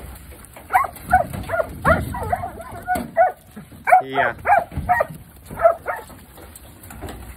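Working sheepdog barking in quick, short, repeated barks, about two to three a second, as it drives sheep through a yard pen. The barks stop about six seconds in.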